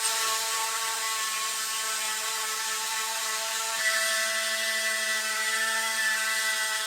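A small electric power tool motor running steadily with a whine over a hiss; its pitch shifts slightly about four seconds in.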